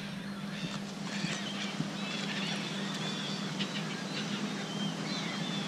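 A large flock of gulls calling, many short overlapping calls at once, over a steady low hum.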